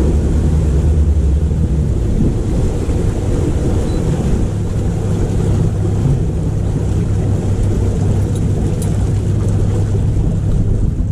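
Fishing boat's engine running under way, with wind on the microphone and water rushing past the hull. The engine note steps up about two seconds in.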